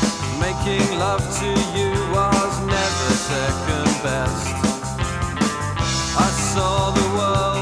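Rock music with a steady drum beat and a melodic line.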